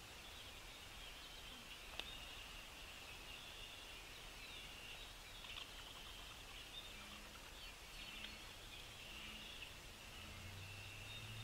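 Small birds chirping and twittering faintly and continuously. There is a single sharp click about two seconds in, and a low hum comes in near the end.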